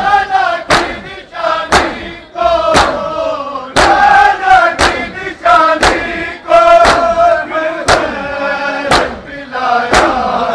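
Matam: a crowd of men beat their bare chests with their palms in unison, sharp slaps about once a second, while they chant a mourning lament together.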